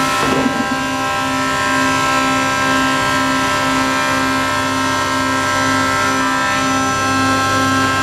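Tongan TA845 hydraulic clamp carrier running as its clamp beds rotate: a steady mechanical hum and whine of several held tones, with a brief clunk about half a second in.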